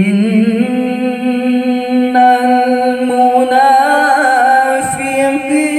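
A young male qari reciting the Quran in melodic tilawah, imitating the Pakistani haflah style: long held notes that step up in pitch, with a wavering ornament near the middle.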